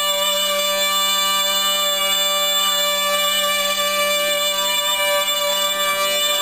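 Snake charmer's been (pungi), a reedy gourd-chambered pipe, playing a melody over a steady unbroken drone note, sounding much like bagpipes.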